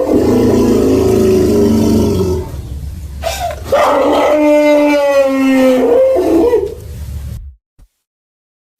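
Made-up stegosaurus calls built mainly from elephant-like sounds. A long, slightly falling call with a low rumble under it dies away about two and a half seconds in. A second long call runs from about four seconds to six and a half, then fades and drops to silence near the end.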